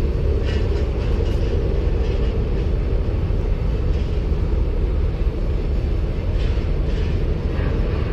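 An engine running steadily, a loud low rumble, with a few faint knocks.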